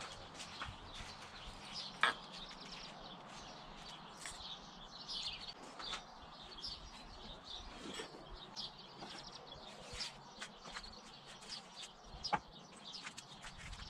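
Birds chirping in the background, with a few sharp clicks and knocks, the clearest about two seconds in and near the end.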